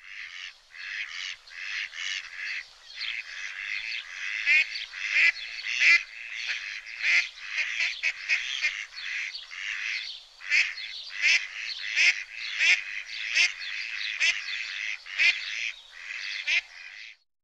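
A flock of waterfowl calling: many overlapping calls, with louder single calls standing out every half second to a second from about four seconds in. The chorus cuts off suddenly near the end.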